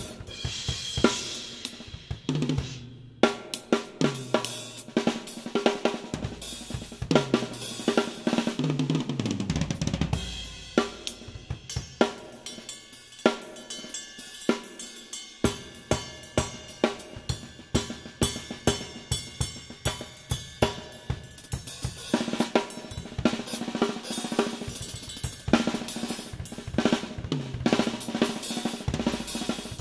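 DW Collector's Series drum kit being played: snare, bass drum, hi-hat and cymbals in a dense groove, with tom fills that step down in pitch in the first ten seconds or so. Recorded through a GoPro Hero 5 Black's built-in microphone at close range.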